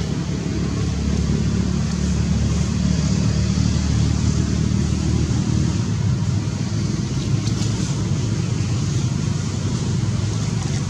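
Steady low rumble of a running engine, even throughout, with a few faint clicks about two-thirds of the way in.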